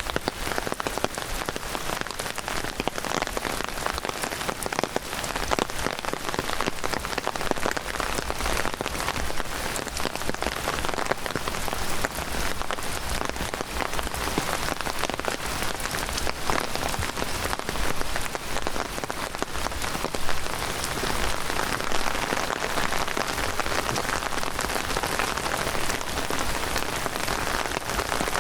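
Heavy rain pouring steadily, a dense patter of drops striking close by.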